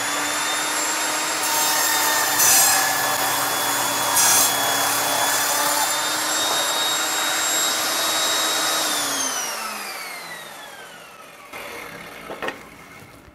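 Evolution Rage 5-S 10-inch table saw running as its carbide-toothed blade crosscuts a 2x4 with two 8-penny finish nails in it. Two brief, harsher bursts, about two and a half and four seconds in, are the teeth hitting the nails, and the motor does not slow. About nine seconds in the saw is switched off, and its whine falls in pitch as the blade spins down.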